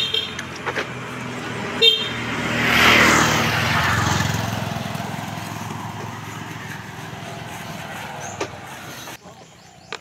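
A motor vehicle drives past close by on the road, swelling to its loudest about three seconds in and fading slowly over the next several seconds, with two short horn toots at the start and about two seconds in.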